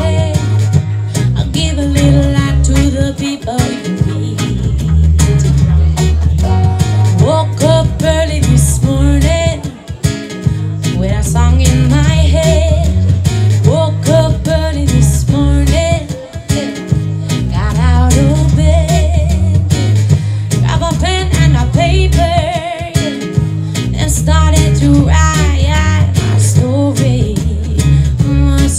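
Live reggae cover: a woman singing lead into a microphone while a man plays guitar, over a strong, steady bass. The sound is amplified through a PA.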